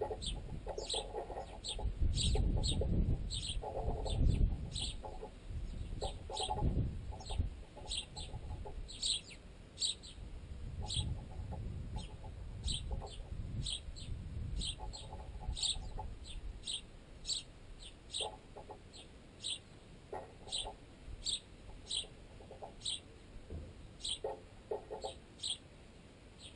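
Sparrows pecking at bread wedged in a tent guy line. The pecks travel along the line into the tent pole that carries the microphone, so they come through unnaturally loud, as bursts of rapid tapping and dull thuds that are heaviest in the first several seconds. Over this a sparrow chirps steadily, a short chirp a little more than once a second.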